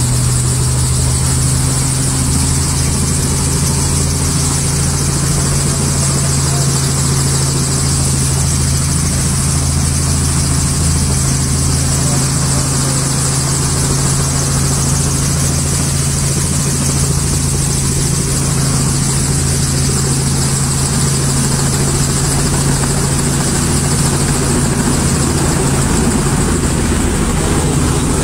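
Light piston helicopter's engine and rotor running steadily, heard from inside the cabin, as an unbroken low hum with a hiss above it. The hum's tone shifts about two seconds before the end.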